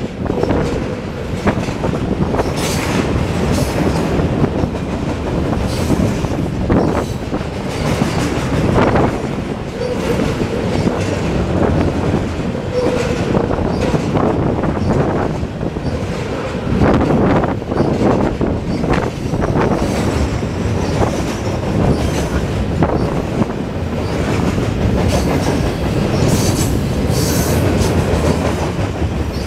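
Freight train of loaded steel flatcars and gondola cars rolling past close by: a loud, steady rumble of steel wheels on rail with repeated clicks and clanks over the rail joints, and a faint wheel squeal around the middle.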